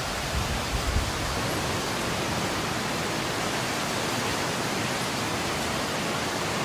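Wind blowing in a snowstorm, a steady rushing hiss, with a few low gusts buffeting the microphone about half a second to a second in.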